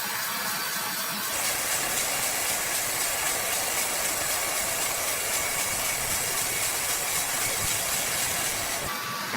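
Sawmill saw running with a steady, hissing whirr. It grows louder about a second in and drops back near the end.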